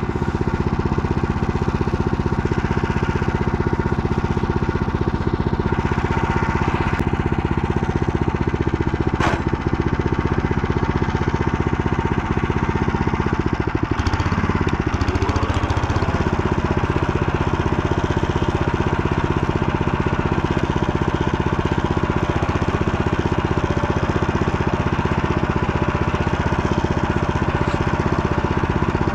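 Motor Sich engine running steadily under way, with a fast even firing beat. About halfway through, its pitch briefly dips and recovers.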